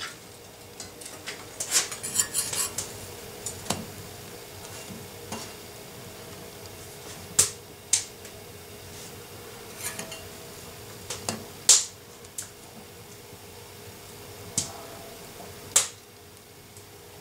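Scattered sharp metal clinks and taps, some bunched together and others a few seconds apart, over a faint steady hum: a fork and bread slices being handled on a cast-iron wood-stove cooktop.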